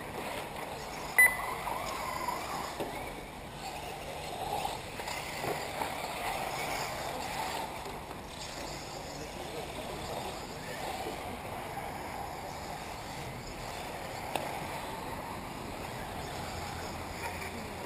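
Indistinct voices over a steady rushing outdoor background, with one short sharp sound about a second in.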